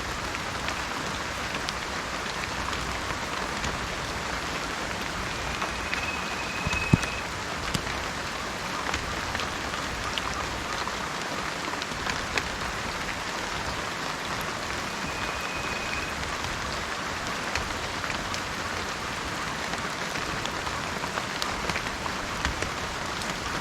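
Steady gentle rain falling, with scattered individual drops ticking and one sharper drip tap about seven seconds in. A short, high, steady whistle sounds twice over the rain.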